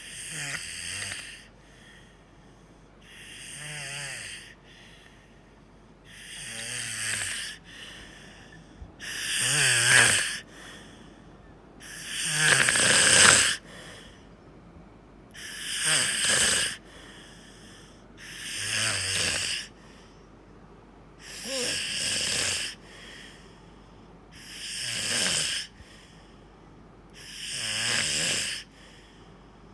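A person snoring in their sleep, one snore about every three seconds, ten in all, the loudest two near the middle.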